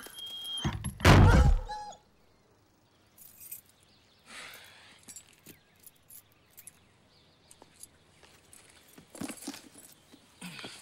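A loud, low, sudden sound lasting about a second, near the start. Then faint rustles and light knocks, a cardboard box being picked up and handled.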